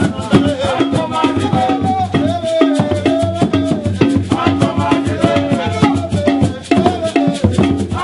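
Mgbè ensemble percussion: hand drums and rattles playing a dense, steady rhythm, with a sliding melodic line over it.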